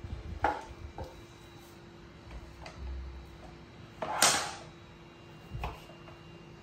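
Several light knocks and one louder, short scrape about four seconds in, as a pet macaque clambers down off a wooden chair and bumps the chair and table.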